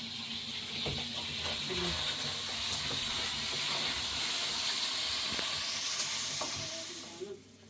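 Food sizzling in a frying pan: a steady hiss with a few light clicks, which cuts off suddenly about seven seconds in.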